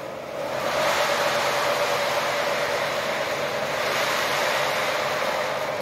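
O gauge model train running along the three-rail track: a steady rolling rush of metal wheels on rail with a steady motor whine, building up about half a second in.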